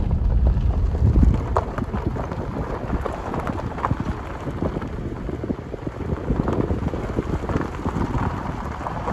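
Footsteps crunching steadily along a rough dirt path, a dense irregular crackle. Wind buffets the microphone for about the first second.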